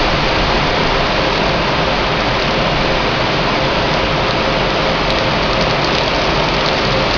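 Steady hiss of rain falling, even and unbroken, with a faint steady hum underneath.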